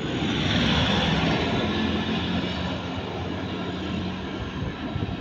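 A motor vehicle's engine running as it passes on a road, swelling about a second in and then slowly fading.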